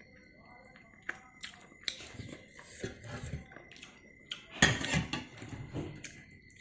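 Close-miked eating: chewing with wet mouth clicks and smacks in irregular bursts, the loudest a little past halfway.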